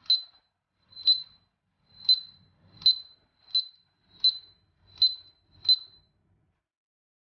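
Home alarm panel's keypad beeping as its buttons are pressed: eight short, high beeps at uneven intervals of under a second, with faint knocks of the presses beneath.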